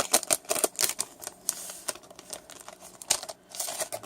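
A trading-card pack wrapper being crinkled and torn open by hand: a run of irregular sharp crackles.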